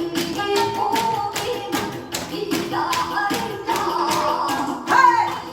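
Upbeat background music with a quick, steady percussive beat and a melody line, played for the exercise routine. Near the end a short, loud shouted call rises over it.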